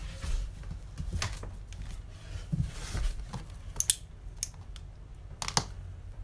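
Handling noises: scattered light clicks and taps, the sharpest about a second in, near four seconds and near the end, over a low steady room hum.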